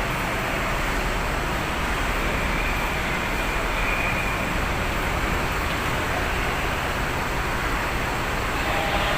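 Strong gale-force wind blowing across the microphone: a steady, loud rushing noise with low rumbling buffets.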